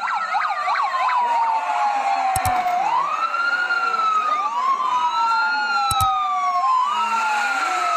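Emergency-vehicle siren in a slow wail, each cycle sweeping quickly up and gliding slowly down, about every four seconds. A faster warbling tone sounds over it briefly at the start, and two sharp clicks cut through.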